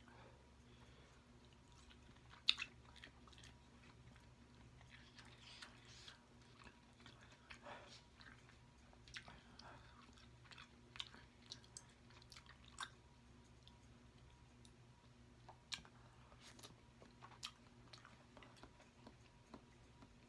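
Quiet close-miked chewing of soft deshelled king crab meat, with scattered small wet mouth clicks throughout and a sharper click about two and a half seconds in.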